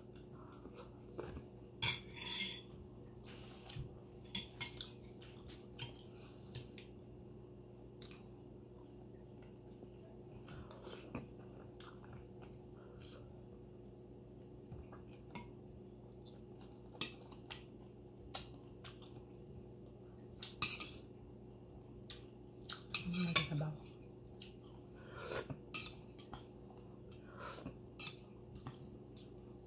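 Metal spoon and fork clinking and scraping against ceramic plates in short, scattered clicks, with a louder flurry about three-quarters of the way through, and chewing between them. A faint steady hum lies underneath.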